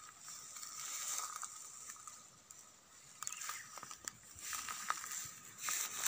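Footsteps crunching and rustling through dry grass, with irregular crackles of brittle stems.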